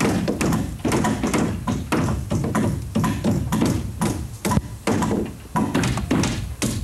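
Hammers driving nails into the wooden roof framing of a house under construction: quick, uneven blows at about three a second.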